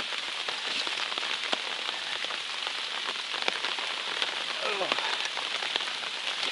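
Rain falling on an open umbrella held overhead: a steady hiss of rain with many sharp ticks of single drops striking the canopy close by.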